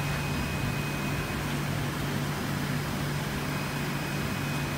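Steady low hum over an even hiss of running room machinery, such as the pumps, filters and air handling around display aquariums.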